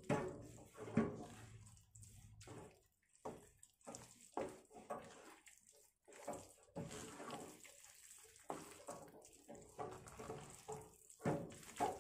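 Thick, wet batter of grated turnip and rice flour being stirred and folded in a pan, in irregular strokes.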